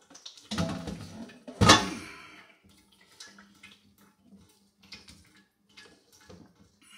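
A straining bag full of wet fruit pulp being twisted and tied into a knot inside a glass jug. Two louder rustling knocks come in the first two seconds, then light crinkles and clicks.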